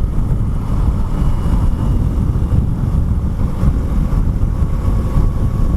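Wind rushing over the microphone, mixed with a 2016 KTM Duke 390's single-cylinder engine running steadily while the motorcycle cruises at speed.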